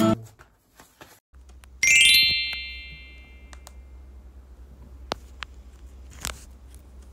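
A bright rising chime, a sparkling glissando added as an edit sound effect, about two seconds in; it rings out for a couple of seconds. A few light, separate taps follow over a low steady hum.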